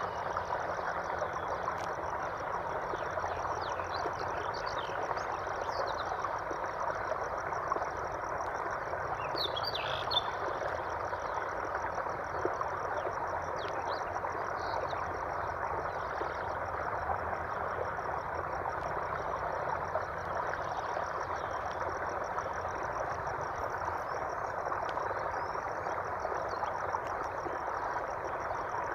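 Nature ambience: a steady, dense chorus-like hiss with a fast, high pulsing trill over it. A few short bird chirps come through, the clearest about ten seconds in.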